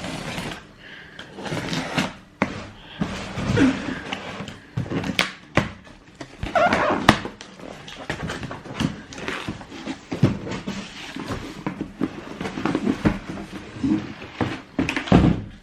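A cardboard trainer box being opened and its contents handled: irregular rustling, scraping and clicks, with a short squeaky sound about seven seconds in.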